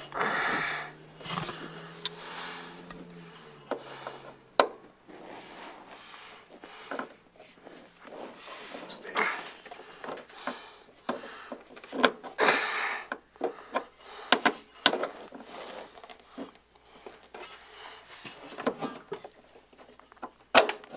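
Hand work on a steel parking brake cable and its clip at the lever bracket: scattered, irregular metallic clicks and clinks, a few of them sharp.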